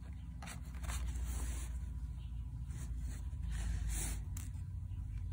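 Embroidery thread being drawn through hooped cloth and under a woven thread net, with a hand brushing over the fabric: a series of short, scratchy rasps over a low steady hum.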